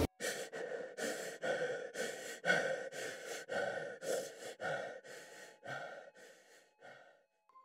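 A person's heavy, rapid gasping breaths, about two a second, growing fainter until they die away. A faint steady tone comes in near the end.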